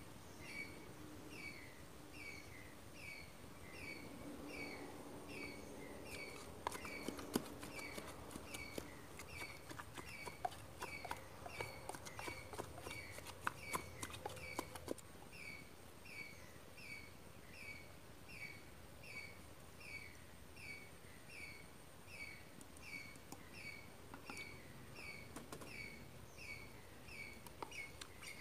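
A bamboo pestle pounding in a bamboo-tube mortar, a run of sharp wooden knocks and clicks in the middle. Under it, a short high falling chirp repeats evenly about every two-thirds of a second.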